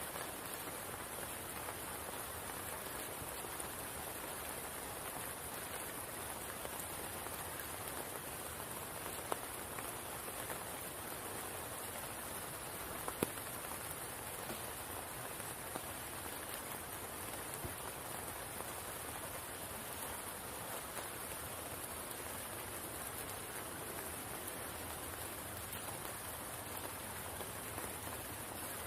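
Steady rain falling on the water of a spring pool, an even hiss with a couple of louder single drops about 9 and 13 seconds in.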